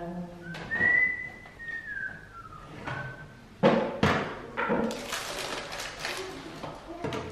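A thin, high whistle-like tone in the first couple of seconds, then a sharp knock a little over three and a half seconds in and a run of clattering and scraping as a metal oven rack and baking tray are pulled out of the oven with a foot through a tea towel.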